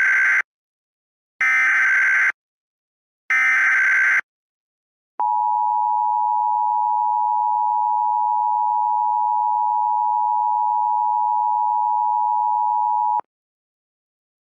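Emergency Alert System signals: three harsh, buzzing SAME header data bursts about a second each, the first already under way, then the steady two-tone EAS attention signal held for about eight seconds before it cuts off sharply.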